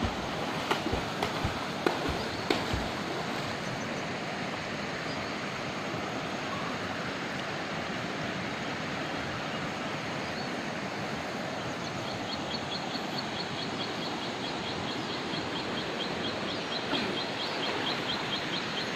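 A stream rushing steadily, with a few sharp knocks in the first three seconds. From about twelve seconds in, a fast, high-pitched ticking call repeats about five times a second for several seconds.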